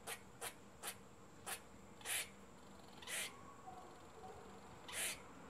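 Grey squirrel at a hole in a tree trunk making short, faint, pitchless sounds: four quick clicks in the first second and a half, then three longer hissing bursts about a second apart.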